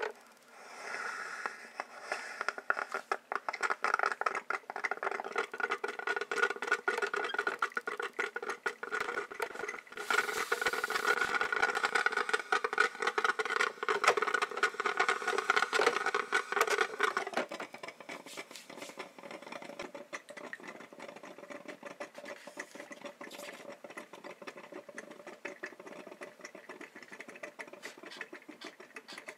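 Coffee maker brewing: a steady buzzing hum with gurgling crackle. About two-thirds of the way through it drops to a quieter crackle.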